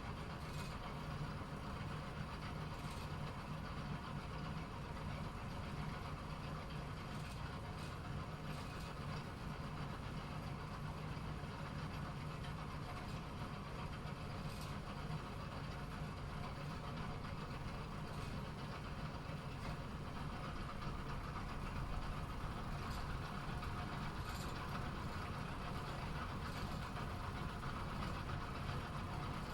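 Bowling pinsetter machinery running with a steady low hum, with faint light clicks now and then.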